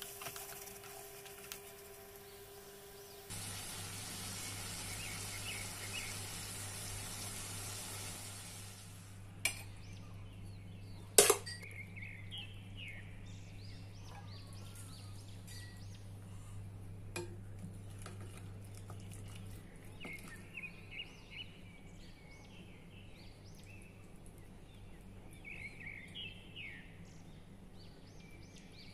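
Prawns roasting in a clay pot give a steady sizzling hiss for several seconds, which then dies away. A single sharp knock comes about eleven seconds in, and small birds chirp in short repeated calls in the background throughout.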